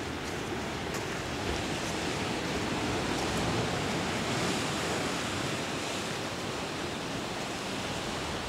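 Ocean surf below the cliffs, a steady rushing wash that swells a little about halfway through, mixed with light wind.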